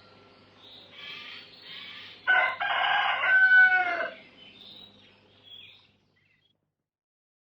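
Rooster crowing once, a loud call of about two seconds that falls in pitch at the end, over faint chirping of small birds. The recording cuts off suddenly about six seconds in.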